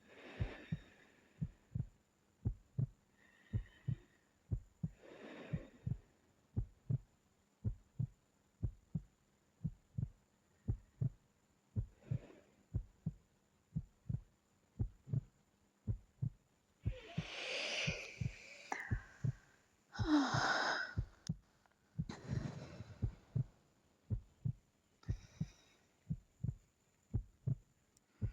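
A woman's slow sleep breathing, soft breaths every few seconds, with two deeper, louder breaths a little past the middle, the second ending in a slight voiced sigh. Under it runs a steady, heartbeat-like double thump.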